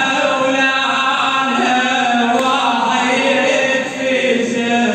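A man chanting a traditional Arabic religious lament solo, in long held notes with ornamented glides in pitch. There is a brief breath-like dip about four seconds in.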